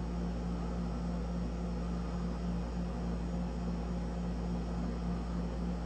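Steady low hum with a faint hiss underneath: room background noise, even throughout.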